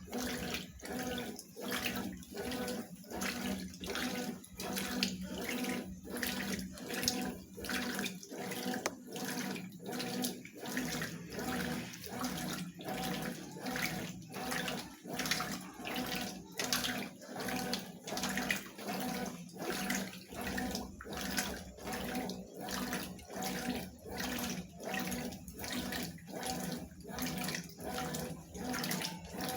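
Consul top-loading washing machine running with water in the drum: a steady hum under a regular sloshing, about one and a half surges a second.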